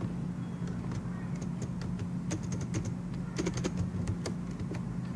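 Typing on a computer keyboard: irregular key clicks in short flurries, over a steady low hum.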